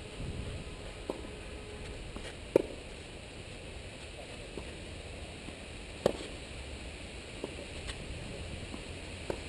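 Tennis ball struck by rackets in a rally on a clay court: two sharp pops, about two and a half and about six seconds in, with fainter hits and ball bounces between them, over a steady low background noise.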